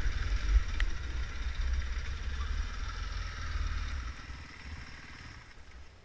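Off-road trail motorcycle engine running as the bike is ridden along a dirt lane, with a heavy uneven rumble on the handlebar-mounted microphone. The sound dies down near the end as the bike comes to a stop.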